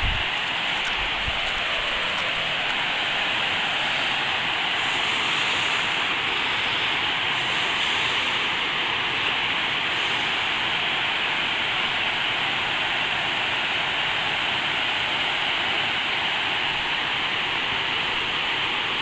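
Steady rush of high water pouring down a concrete dam spillway, carrying the runoff from heavy rain.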